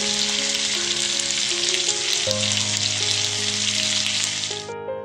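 Semolina-coated pomfret shallow-frying in hot oil in a pan, a steady sizzle that cuts off abruptly near the end.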